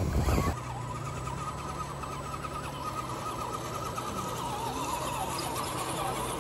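Electric motors and geartrains of several scale RC crawler trucks whining as they drive slowly up a rocky trail, the pitch wavering as the throttle changes. A brief louder rush of noise comes at the very start.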